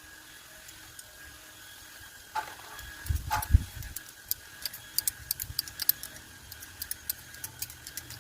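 Bonsai pruning scissors snipping twigs: a run of quick, sharp, irregular clicks starting about three seconds in, with a few low bumps from handling the tree.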